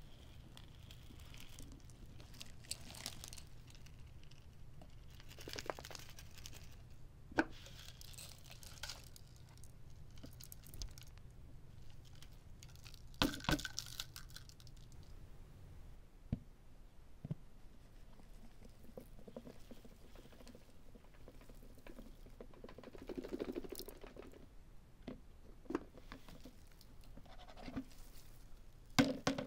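Clear plastic vacuum dust bin being emptied by hand onto carpet: packed paper confetti, dust and fluff rustling and pattering out. Scattered sharp clicks and knocks from the handled bin come through, the loudest about 13 seconds in and near the end.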